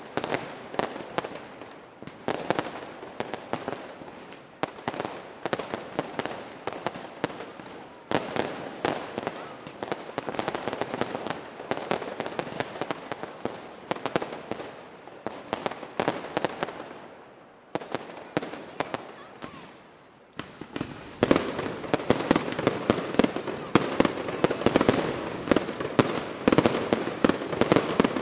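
Fireworks display: a dense, rapid string of crackling bangs and pops, thinning out briefly about two-thirds through, then building louder and denser near the end.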